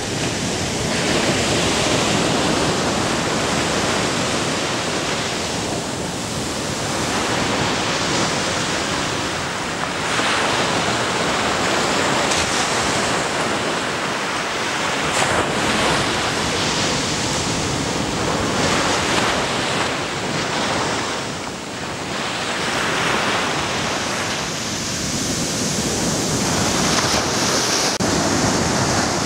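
Ocean surf breaking and washing up a sandy beach, a continuous rush that swells and eases every few seconds.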